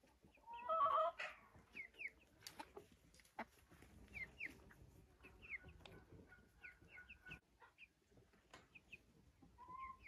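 Hens clucking: one louder call about a second in, then quiet short high chirps and a few soft knocks.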